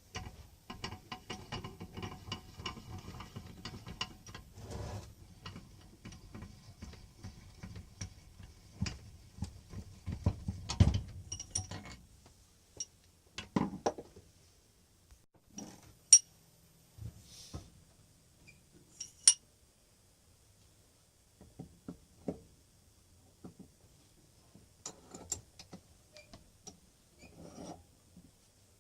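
Metal parts of an old bench vise being handled and worked by hand: a dense run of rattling, ratchet-like clicks for about the first twelve seconds, then scattered sharp metallic clinks and knocks with quiet gaps between them.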